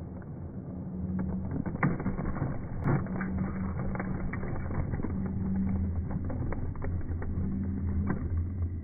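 Model diesel locomotive running along the track: a steady low motor hum with scattered small clicks, two sharper clicks about two and three seconds in.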